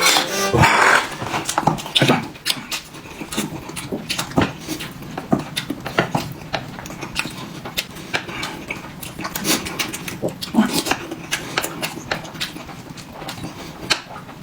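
People eating dumplings noisily: wet chewing and mouth smacks, with irregular sharp clicks.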